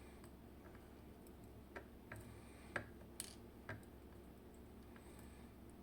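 Faint, sparse metallic clicks of small brass key pins being taken out of a disassembled Vachette V DIS+ dimple lock and set down: about five light ticks in the middle few seconds, otherwise near silence.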